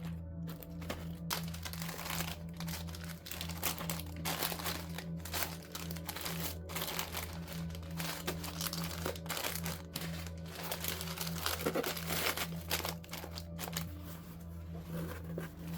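Packaging crinkling and rustling as small items are packed into an order, over soft background music.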